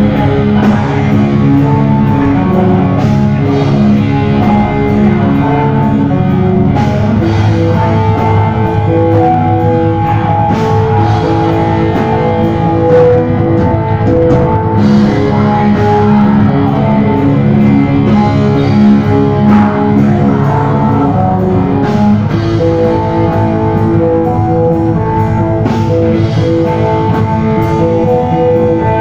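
Live rock band playing loud: electric guitars holding chords over a drum kit.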